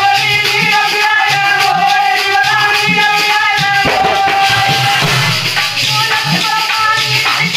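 Male voices singing a rustic Hindi folk Ramayan (thali Ramayan) over a steady rattling beat from a hand-held wooden bar of metal jingle discs, with a low regular beat from the thali, a brass plate played on a clay pot.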